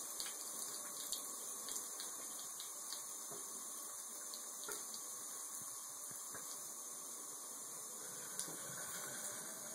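Thin stream of water trickling steadily from a bathtub spout onto a cat's fur and into the tub, with small scattered ticks of splashing.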